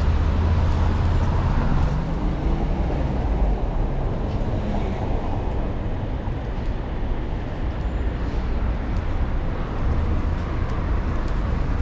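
City street traffic: cars and buses running past in a steady rumble, with a deeper, louder rumble over the first two seconds or so.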